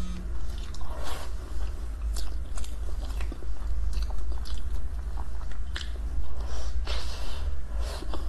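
Close-miked mouth sounds of biting into and chewing a soft pink ice-cream dessert: irregular short clicks and smacks several times a second. A steady low hum runs underneath.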